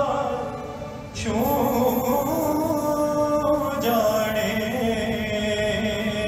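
Devotional Hindu kirtan: voices singing a hymn in long, held, slowly gliding notes. The sound dips about a second in, then a new sung phrase begins.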